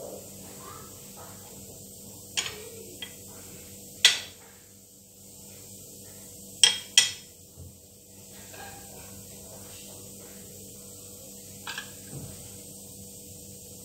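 Metal spoon clinking against ceramic dishes while serving peas: about seven sharp separate clinks, the loudest about four seconds in with a brief ring.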